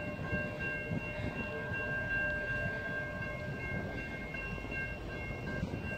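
Railroad grade-crossing bell ringing steadily, the warning that the gates are down and a train is due, over a low rumble from the approaching freight train.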